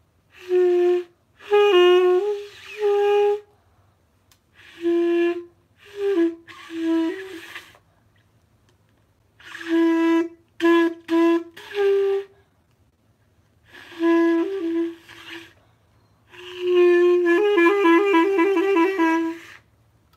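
Clarinet played in about seven short phrases of a few notes each, with pauses between them; near the end it plays a fast trill between two neighbouring notes.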